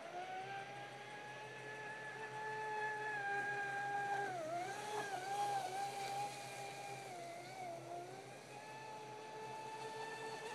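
Traxxas Spartan RC speedboat's brushless electric motor running at speed across the water as a steady high whine. Its pitch dips briefly a few times near the middle as the throttle eases and comes back.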